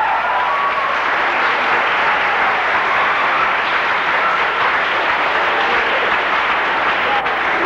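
Audience applauding steadily, a dense even clapping that follows the end of the music.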